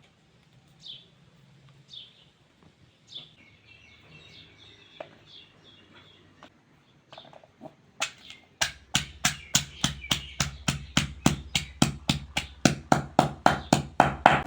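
Small birds chirping in short, falling notes for the first half. About eight seconds in, a pestle starts pounding in a mortar at about four strokes a second, crushing chillies for a walnut chutney.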